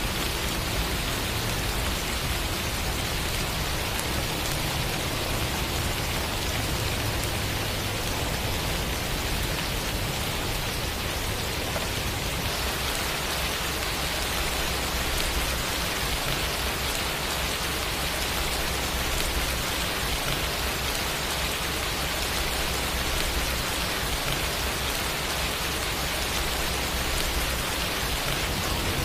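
Steady rain falling: an even, dense hiss of drops, unchanging throughout.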